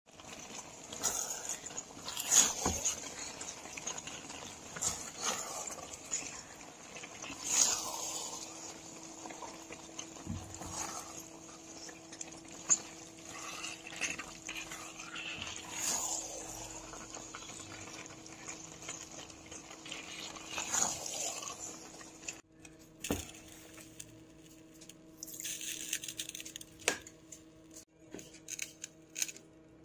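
Kitchen cooking sounds: water running and splashing, with scattered clinks and knocks of pots and utensils. About three quarters of the way through, the water noise drops away, leaving a quieter background with occasional clicks.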